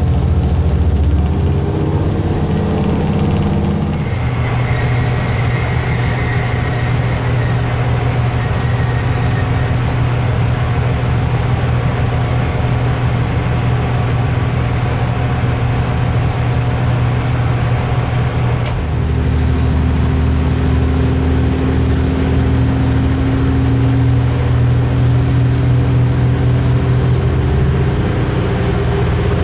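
Diesel railcar running along the line, its engine drone and rolling noise steady. The engine note changes about four seconds in and again just before halfway through.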